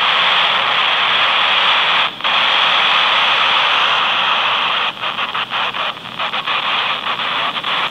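Baofeng UV-5R handheld's speaker hissing with FM static while tuned to the SO-50 satellite downlink. The hiss is loud and steady at first with a brief cut-out about two seconds in. From about five seconds in it turns choppy, breaking up in rapid dropouts.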